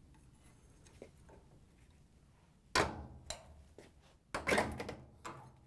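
Putty knife pushed into the seam between a top-load washer's top panel and cabinet to release the top's spring lock: a sharp click nearly three seconds in, then a cluster of clicks and knocks from the lock and the top panel as it is freed.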